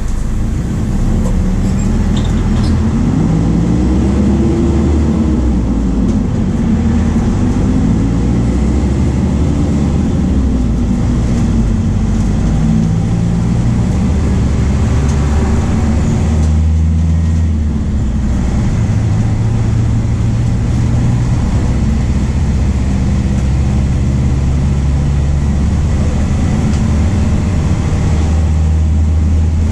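Diesel engine of a VW 17.230 OD bus, a four-cylinder MAN D0834, running under way. Its pitch rises and falls in the first few seconds, then holds at changing steady levels, with a brief dip about two-thirds of the way through.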